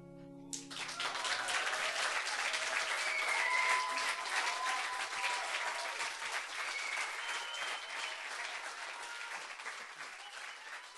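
Audience applauding at the end of an acoustic song, with a few voices cheering over it, as the last guitar chord dies away. The clapping starts about half a second in, is loudest around four seconds in, then slowly fades.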